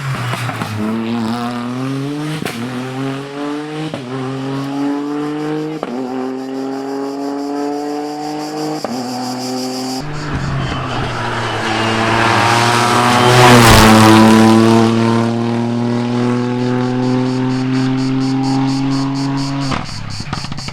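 Rally car engine accelerating hard, its pitch climbing and falling back with each quick upshift, four or five times. About halfway through the sound changes abruptly to a rally car passing close by, loudest a little past the middle and then pulling away.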